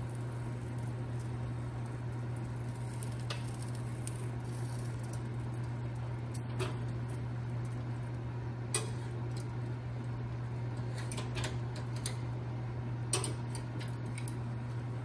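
Convection oven fan humming steadily, with a handful of light metal clinks from a spatula and tongs knocking the wire rack and sheet pan as chicken legs are turned; the sharpest clink comes near the end.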